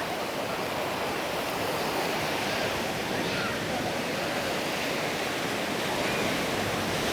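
Surf washing onto a sand beach: a steady hiss of small waves, with faint voices of people in the background.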